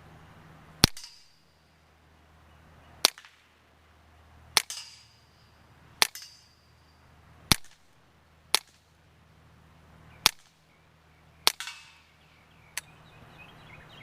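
Browning Take-Down semi-automatic .22 rifle with an ARMTAC Monotube integral suppressor firing Remington Golden Bullet high-velocity rounds: about nine sharp suppressed shots, one every one to two seconds, the last one weaker.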